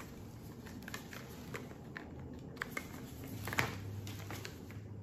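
Small cosmetic product boxes and packaging being handled: scattered light clicks and taps, with the loudest tap about three and a half seconds in.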